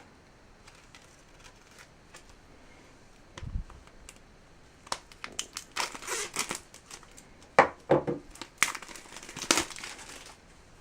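Packaging being handled and opened: after a single low thump, a run of irregular crinkling and tearing rustles starts about five seconds in and grows loudest near the end.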